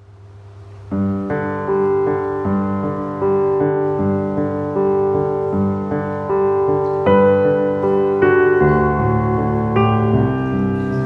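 Background piano music: a slow melody of held notes that comes in about a second in.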